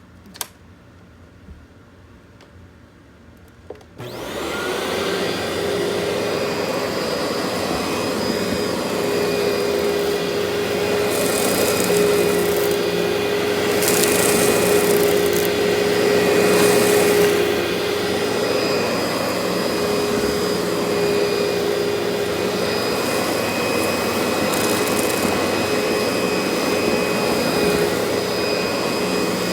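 Vacuum cleaner switched on about four seconds in, just after a click: the motor spins up with a brief rising whine, then runs steadily with a constant hum and a rushing airflow noise.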